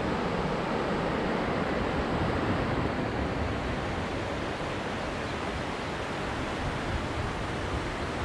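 River rapids rushing over shallow rock, a steady wash of moving water.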